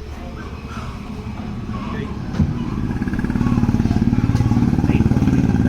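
Motorcycle engine running close by, its steady pulsing getting louder over the first three seconds and then holding, with a sharp knock about two and a half seconds in.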